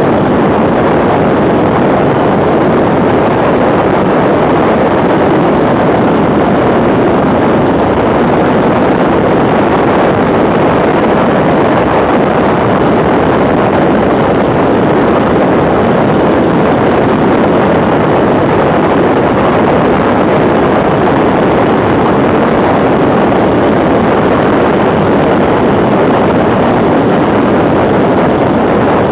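Steady, loud wind rush on a handlebar-mounted camera's microphone over the running of a BMW R1150R's flat-twin boxer engine, the motorcycle cruising at an even speed.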